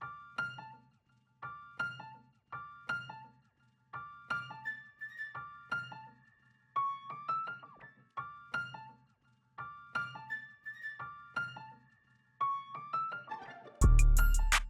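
Background music: a light piano melody of short, evenly paced notes over a soft low bass, with a loud deep bass entry near the end.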